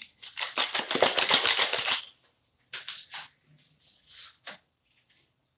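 Taco seasoning packet being torn open and crinkled: a dense, rapid crackle for about two seconds, followed by a few brief rustles.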